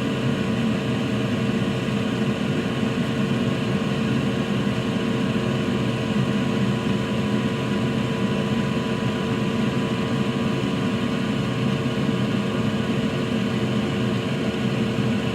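Steady drone of a fan or blower, a constant whirring hum with several fixed tones that doesn't change.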